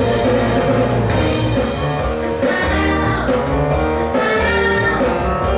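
Live five-piece show band playing a dance number: drum kit, electric bass, guitar, keyboards and saxophone.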